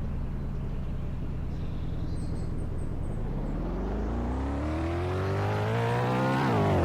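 Car engine idling, then accelerating away, its pitch rising steadily for a few seconds and dropping suddenly near the end at a gear change.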